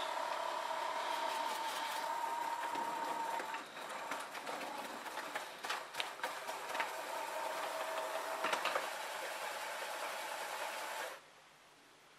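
Ecovacs Deebot T9+ robot vacuum running as it turns and docks on its auto-empty station: a steady motor hum with a held whine and a few clicks and knocks. It cuts off suddenly about eleven seconds in as the robot settles, and the station's self-emptying suction does not come on.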